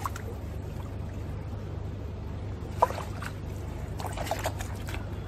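Steady rush of river water, with a few brief splashes about three seconds in and again around four seconds as a barbel is taken out of a keepnet held in the water.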